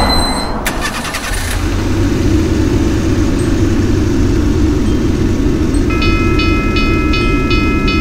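A steady low vehicle engine rumble. About six seconds in, a railroad crossing bell starts ringing rapidly, about three strokes a second, as the crossing warning begins.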